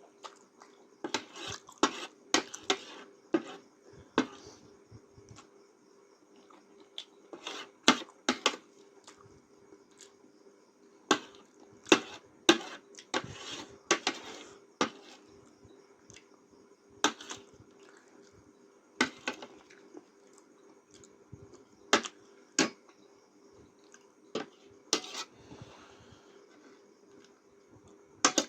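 Eating utensils clicking and tapping against a dish of noodles while eating, in scattered sharp taps that sometimes come in quick clusters.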